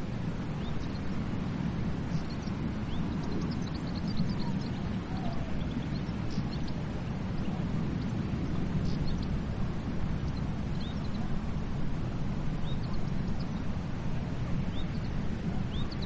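Steady low rush of moving water, heard as an even rumble, with scattered short, faint, high chirps throughout.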